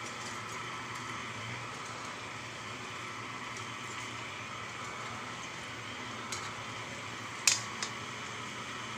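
Cabbage and chayote cooking in a wok over a gas burner, a steady hiss with a low hum underneath. A sharp knock about seven and a half seconds in, with a couple of fainter ones around it.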